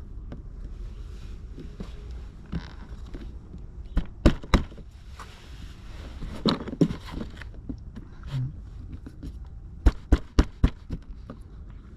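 Sharp clicks and knocks of hand tools against car door-handle parts, in short clusters about four, six and a half, and ten seconds in, over a steady low wind rumble.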